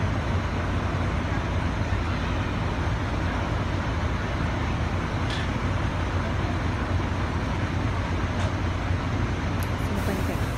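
Steady low rumble of idling bus engines.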